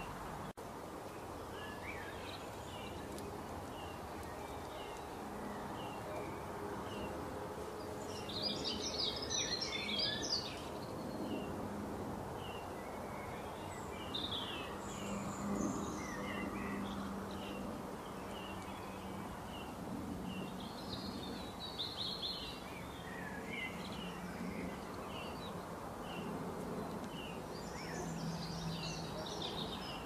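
Wild birds singing: one bird repeats a short chirp about once a second, while others break in every few seconds with louder bursts of quicker, busier song, over a steady background hiss.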